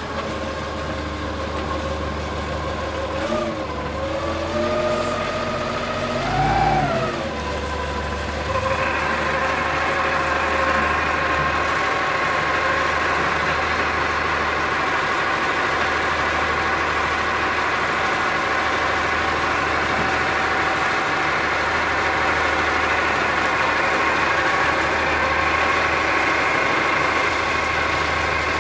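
An engine running just after starting: it is revved briefly twice, then settles from about eight seconds in into a steady, even run at a higher speed.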